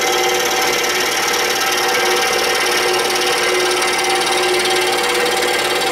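Excalibur scroll saw running, its reciprocating blade cutting a curve through a piece of wood as the stock is turned. A steady, even cutting sound over the hum of the saw's motor.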